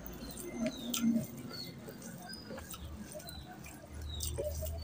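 Close, wet eating sounds: fingers squishing and kneading rice into oily mutton curry on a plate, with many small sticky clicks and mouth sounds of chewing.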